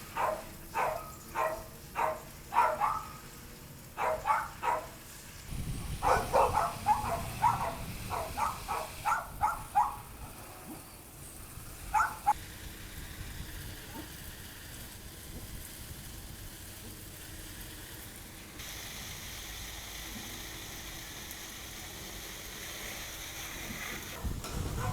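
A dog barking in quick, repeated runs of short, sharp barks, then one more bark about twelve seconds in, followed by a steady background hum.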